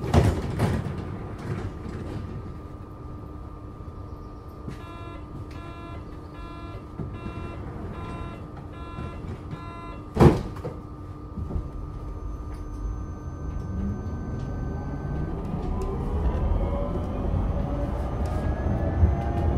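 Adtranz GT6N low-floor tram at a stop: a thump, then a run of door-warning beeps about one a second, and a door thumping shut about ten seconds in. A few seconds later the traction drive starts whining, rising steadily in pitch as the tram pulls away, over a steady hum.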